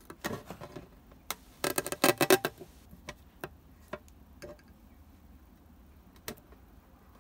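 Handling duct tape on a glass or plastic sheet: scattered light clicks and taps of fingers on the sheet, with a dense crackling burst about two seconds in as a strip of the tape is worked loose.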